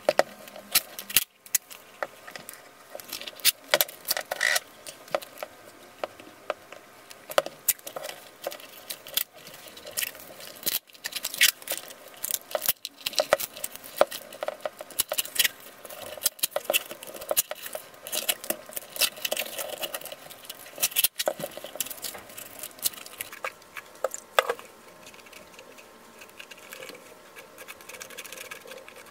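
Close handling noise of masking tape being pulled off the roll and wrapped tightly around a rubber climbing shoe: irregular crackles, rustles and sharp clicks.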